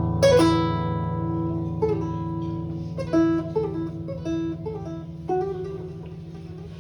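Acoustic guitar played live: a strummed chord just after the start is left to ring and fade, then single plucked notes follow every second or so over a steady low drone.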